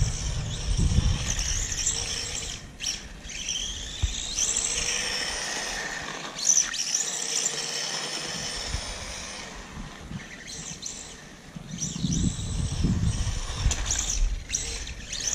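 Brushless motor of a 1/18-scale LaTrax VR46 Rally RC car running on a 2S battery, giving a high whine that rises and falls in pitch over and over as the throttle is worked. A low rumble comes in near the start and again near the end.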